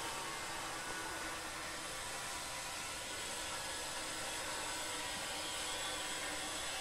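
A steady, even hiss of noise with no distinct knocks or strikes.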